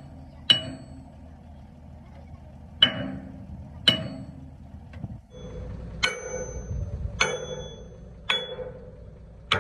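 A sledgehammer striking steel at an excavator's boom foot: seven sharp, ringing metal-on-metal blows, roughly one a second with a longer pause after the first. A low rumble runs under the middle blows.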